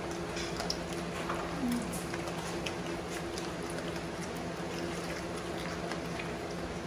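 Pit bull chewing a raw whole fish: irregular wet crunching and smacking clicks, over a steady low hum.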